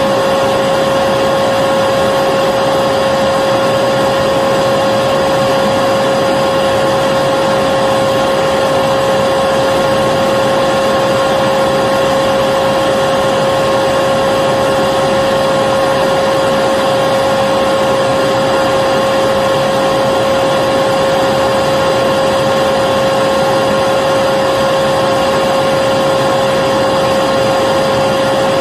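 Vacuum cleaner running continuously: a steady motor whine and rushing air at constant pitch and level, with no change in load.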